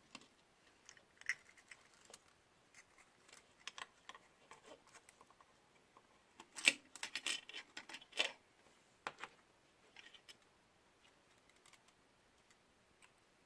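Scattered small clicks and taps of a drone's gimbal camera parts and small tools being handled during reassembly, with a busier run of clicks about seven to eight seconds in.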